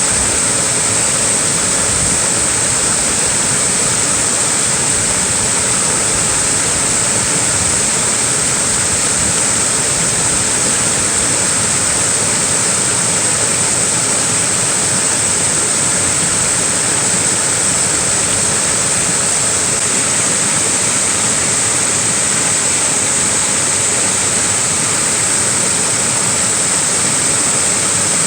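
Small waterfall splashing steadily, an even rush of falling water with no change.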